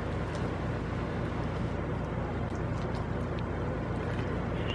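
Steady low hum and hiss of background noise, with a few faint clicks.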